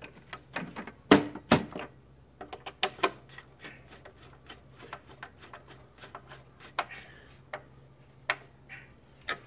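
A hand screwdriver driving screws into the lid of a Hypertherm Powermax 45 plasma cutter's case: an irregular run of clicks and small metallic ticks, the two loudest about a second in.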